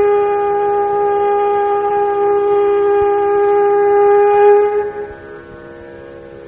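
A conch shell (shankha) blown in one long steady note that stops about five seconds in, over a soft continuous drone.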